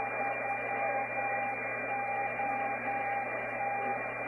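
Receiver audio from a Kenwood TS-570D on the 630-meter band, tuned to 474.2 kHz upper sideband: steady band noise and hiss, with the VE3OT CW beacon's Morse tone keying on and off in long dashes over a steady higher tone.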